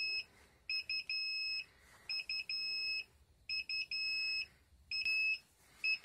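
Inkbird ITC-308 WiFi temperature controller's alarm buzzer beeping in a repeating pattern: a few quick short beeps, then a longer beep, each group about every second and a half. It is the high-temperature alarm, sounding because the probe reading is out of the set range.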